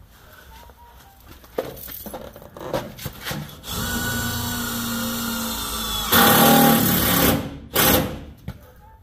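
Power drill driving a screw: a few clicks, then the drill runs steadily for about two and a half seconds, gets much louder for over a second as the screw is driven in, and gives one short burst near the end.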